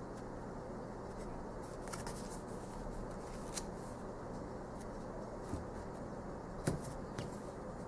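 Tarot cards being handled and laid on the card piles: soft sliding of card stock with a few light taps and clicks, the sharpest near the end.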